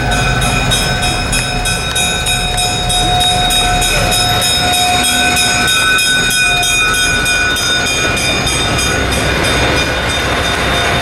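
Burlington EMD E5 diesel passenger locomotive with its streamlined train passing close at speed: a loud, steady engine and rolling-wheel rumble with a fast, regular clicking of the wheels. Several steady high tones ride over it, the lowest of them dropping out about halfway through.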